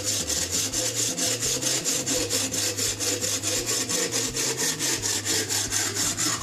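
Hand bow saw with a hollow tubular frame and a fairly dull blade cutting through a stick of very dry hickory. It saws in rapid, even strokes, about five a second.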